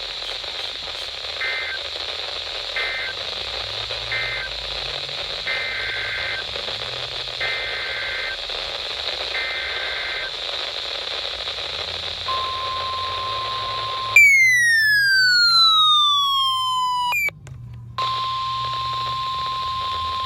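Weather radio hiss broken by EAS/SAME digital data bursts, two-pitched warbling chirps: three short end-of-message bursts, then three longer header bursts announcing the next alert. About twelve seconds in, the steady 1050 Hz NOAA Weather Radio warning alarm tone starts. Two seconds later a much louder falling electronic wail cuts across it for about three seconds, then the alarm tone resumes.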